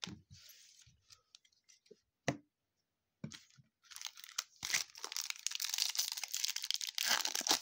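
A few light clicks and one sharp tick of cards being handled, then from about halfway through a dense crinkling and tearing as a foil baseball card pack wrapper (2020 Topps Series 2) is ripped open.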